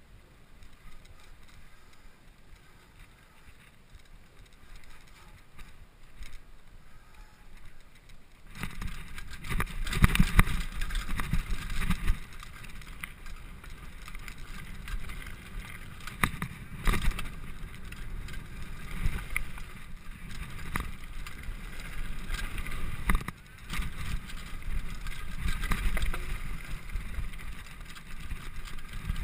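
Downhill mountain bike rolling quietly at first, then from about eight seconds in riding fast down a dirt and gravel trail: a loud, rough rumble of tyres and bike with frequent sharp knocks from bumps.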